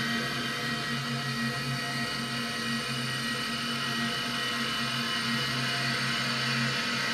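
Dense electronic noise drone from handmade synthesizers: a steady wash of hiss threaded with several held high tones over a low, flickering hum.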